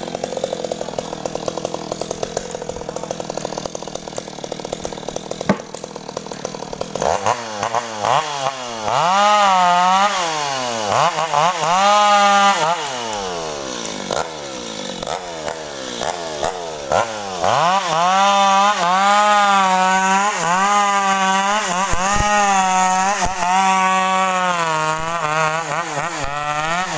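Stihl chainsaw cutting sengon (albizia) wood. The engine runs at low speed for the first several seconds, then is revved high, its pitch rising and dipping repeatedly as the chain bites into the log.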